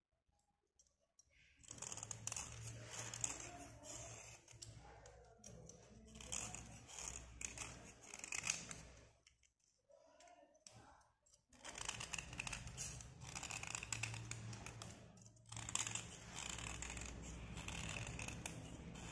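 Knife blade scraping along a slate pencil, shaving off its stained outer layer in quick repeated strokes. The scraping starts after about a second and a half and stops for a couple of seconds around the middle before going on.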